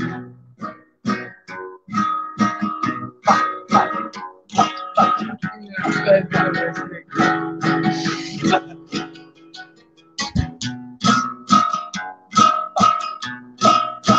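Acoustic guitar strummed in a steady rhythm, about two to three strokes a second, with chords ringing between strokes; an instrumental stretch of a song, with no singing.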